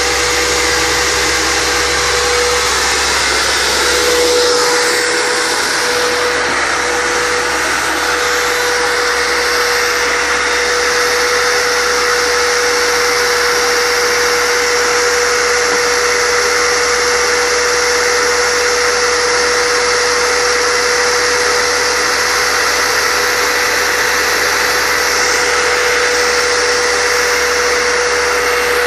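Red Fantom canister vacuum cleaner running steadily: a constant rush of air with a steady motor whine.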